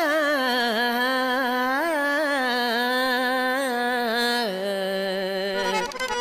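A voice singing a wordless, wavering opening phrase to harmonium accompaniment, then settling on a long held lower note about four and a half seconds in.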